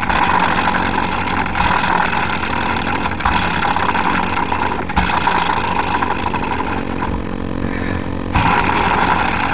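Hand-built permanent-magnet motor's rotor and stator magnets spinning: a steady whir over a constant low hum, with a few light clicks. The whir dips about seven seconds in and picks up again with a click a second later while the magnets are being brought into sync.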